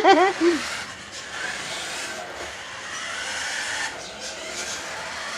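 Small electric motor of a remote-control toy car whirring as the car drives across the floor, its pitch wavering as it speeds up and slows.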